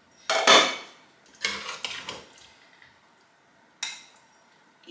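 Dishes and a metal spoon clinking and knocking as food is dished up: a few separate knocks with short ringing, the loudest just after the start and a sharp click near the end.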